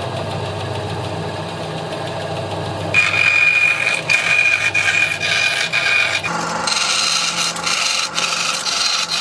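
Small benchtop bandsaw running. From about three seconds in, its blade cuts the sharpened points off a bundle of wooden pencils with a rasping, ringing sound that changes again a little after six seconds.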